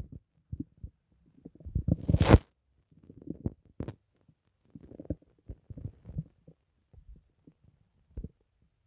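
Human stomach gurgling and rumbling in irregular, bubbling spurts. The loudest gurgle comes about two seconds in, followed by a string of quieter ones.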